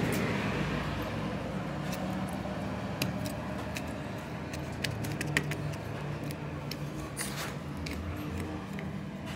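Metal hand tools, a knife and a steel rod, clinking and scraping against the torn rubber of a truck tyre sidewall as the damaged rubber is cut away, a few sharp clicks scattered through, over a low steady hum.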